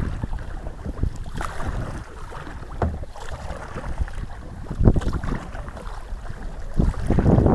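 Canoe paddle strokes in the water, one every second and a half to two seconds, with wind rumbling on the microphone.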